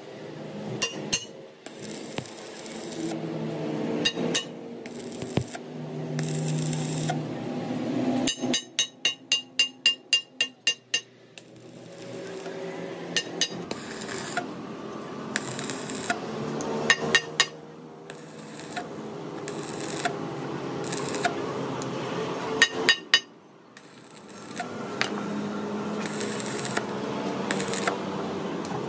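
Metalwork on a truck front axle: scraping and tool noise on metal, broken by a quick run of about ten hammer blows about nine seconds in and a few single knocks later.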